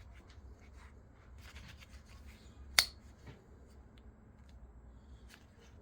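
Light handling noises, faint rubbing and small ticks, with one sharp, ringing click nearly three seconds in.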